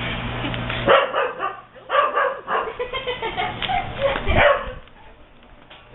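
A dog barking in a run of short barks, with a low steady hum underneath at the start.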